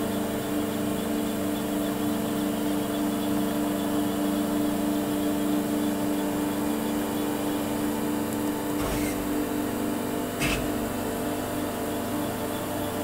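Okuma MX-40HA horizontal machining center running, a steady machine hum made of several fixed tones. Two short knocks come about nine and ten and a half seconds in, the second louder.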